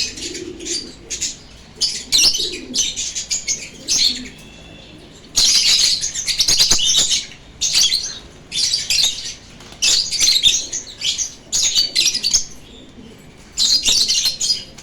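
A flock of lovebirds chattering: bursts of shrill, rapid chirps about a second long, coming again and again with short lulls between.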